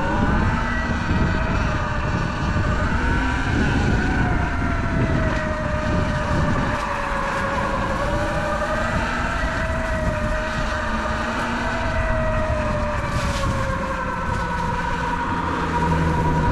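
Sur-Ron Light Bee X electric dirt bike's motor whining while riding, its pitch rising and falling gently with speed and settling lower near the end, over low wind rumble on the microphone.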